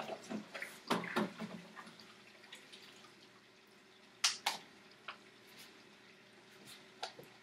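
Dishes being washed by hand in a kitchen sink: water dripping and splashing, with scattered sharp clinks of dishware. The loudest are two clinks about four seconds in.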